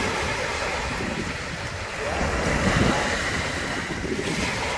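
Small shore-break waves washing up and hissing on a sandy beach, with wind buffeting the microphone; the wash grows louder about halfway through.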